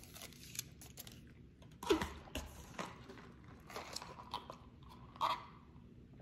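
A person chewing fast food close to the microphone, with scattered short mouth sounds. There are louder ones about two seconds in and near the end.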